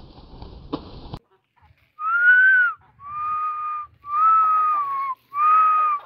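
A person whistling four drawn-out notes, each under a second long and held at a steady pitch, to call the chickens in to feed. A second of rustling noise comes before them and stops abruptly.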